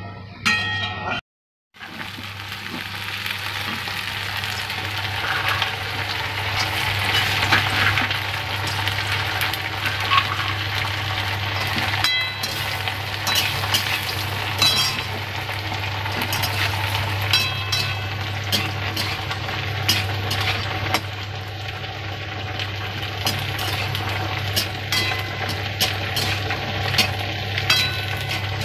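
Hot oil sizzling steadily in a steel wok as a tempering for a bean curry is fried, with a metal spatula scraping and clinking against the pan now and then. The sound drops out completely for a moment about a second in, and a steady low hum runs underneath.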